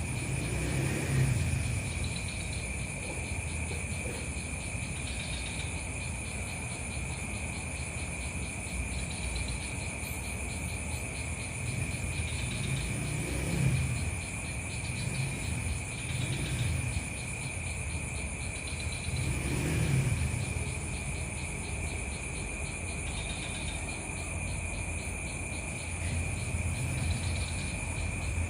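Insects trilling steadily at two constant high pitches, with short higher chirps recurring every few seconds. Underneath, a low rumble swells and fades now and then.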